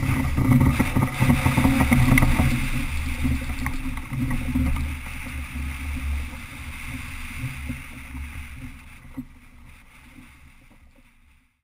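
Wind buffeting the microphone and sea water rushing and splashing around a sailing yacht pitching through rough seas. The sound fades out gradually over the second half.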